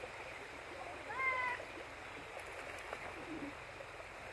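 Steady rush of shallow river water flowing. About a second in comes one short, high-pitched cry that rises and then holds for about half a second.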